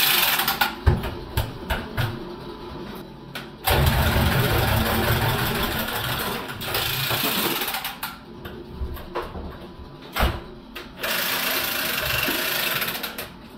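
Milwaukee cordless pipe cutter running as it cuts through a shower supply pipe. It runs in spells of a few seconds, the longest about four seconds in, with clicks and knocks from the tool being handled between them.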